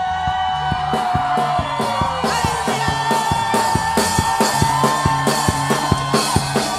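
Church congregation shouting and cheering, a shout of joy in worship, over live band music with a fast, steady drum beat.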